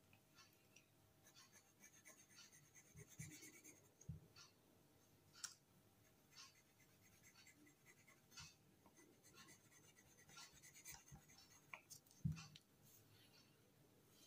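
Faint pencil strokes scratching and tapping on paper, scattered and irregular, with a few soft thumps.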